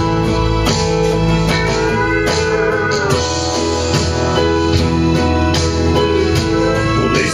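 Instrumental passage of a country song with no vocals: an acoustic guitar strummed steadily over held accompanying notes and a bass line.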